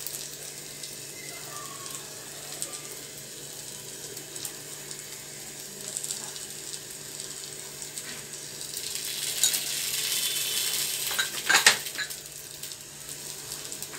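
Bread-and-egg pizza base sizzling in a frying pan while a metal spoon spreads tomato ketchup over it, scraping and tapping against the pan. The sizzle swells about two-thirds of the way through, and a few sharp clicks come near the end.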